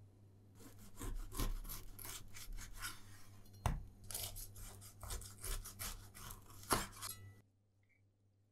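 Large kitchen knife sawing through a baked loaf with a crisp crust on a wooden cutting board: a run of rasping back-and-forth strokes, with two sharp knocks, about halfway and near the end. It cuts off suddenly near the end.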